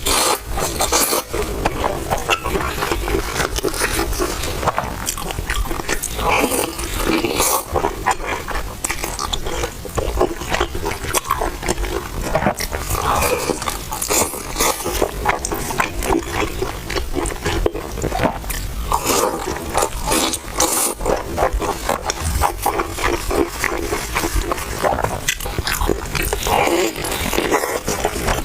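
Close-miked eating: crunching bites and wet chewing of a crispy paper-thin stuffed pie, with dense irregular crackles throughout.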